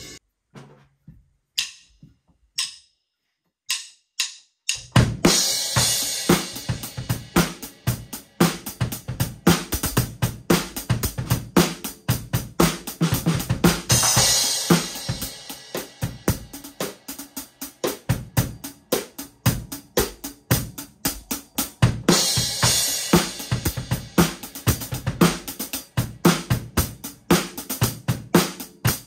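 Acoustic drum kit played in a steady beat of kick, snare and hi-hat, with cymbal crashes at about five, fourteen and twenty-two seconds in. It starts about five seconds in, after near silence broken by a few faint clicks.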